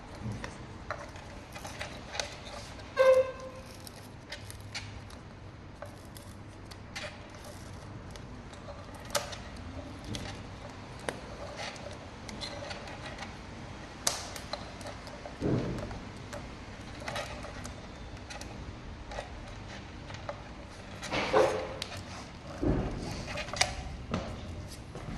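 Hand tools and metal parts being handled while working on an electric scooter's wheels: scattered clicks, taps and knocks, with a brief pitched tone about three seconds in and a few heavier knocks near the end.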